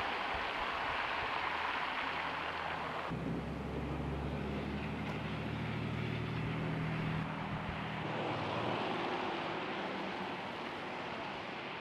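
Steady hiss of wind, then from about three seconds in a vehicle engine running with a low hum, which thins out after about eight seconds.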